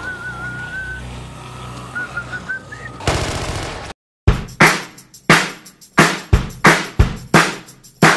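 A wavering whistled tune over a low drone, then a burst of rapid automatic fire from an assault rifle just before halfway, a brief cut to silence, and a string of separate loud rifle shots a fraction of a second apart.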